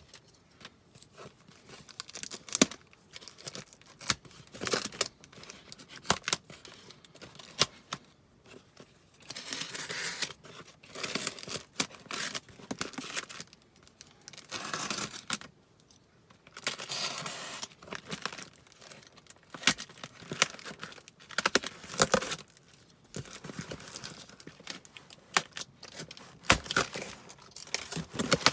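Packaging being torn open and handled: tape and wrapping tearing and crinkling in long rustling stretches, broken up by sharp clicks and handling knocks.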